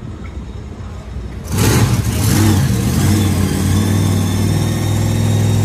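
An engine starts up suddenly about a second and a half in and keeps running at a steady idle, loud over the low background hum.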